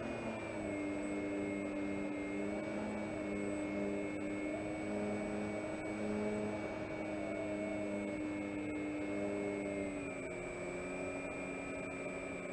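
Electric motor and propeller of an FMS J-3 Cub RC model plane in flight, as heard from the onboard FPV unit: a steady whine and hum that shifts in pitch slightly with the throttle, just after the start and again about ten seconds in.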